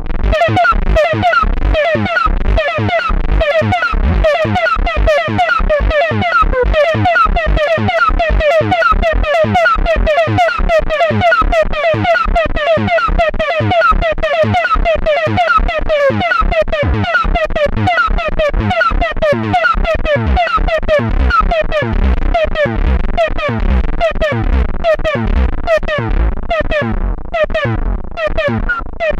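Moog DFAM analog percussion synthesizer playing a fast, steady sequence through a Strymon Ola chorus pedal: short pitched hits that each fall in pitch, over low thumps.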